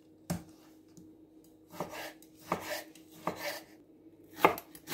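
Kitchen knife slicing a tomato and then an onion on a wooden cutting board: separate chopping strokes of the blade onto the board, about a second apart, coming faster near the end.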